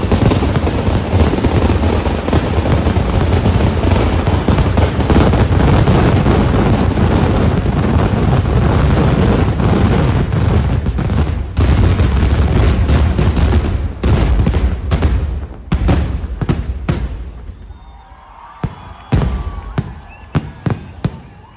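Dense, unbroken barrage of temple-festival fireworks (vedikettu), countless explosions merging into one continuous rumble. After about fourteen seconds it thins into separate bangs and cracks, and near the end only scattered, quieter pops remain.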